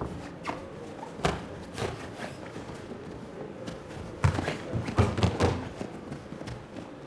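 Boxing glove punches thudding, a few single blows and then a quick flurry of several loud ones about four to five and a half seconds in.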